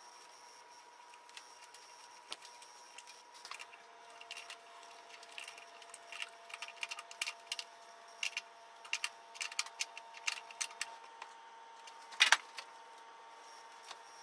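Faint, irregular metallic clicks and clinks of hand tools on small metal parts, getting busier after a few seconds, with one sharper click near the end.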